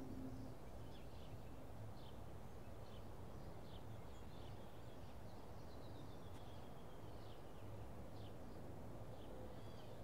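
Faint outdoor ambience: scattered short bird chirps over a steady low background hum, with one longer falling bird call about six seconds in.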